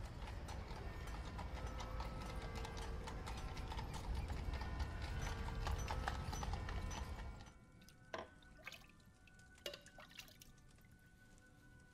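Horse hooves clip-clopping over a low rumbling street background. It drops away about seven and a half seconds in, leaving a quiet background with a few sharp knocks.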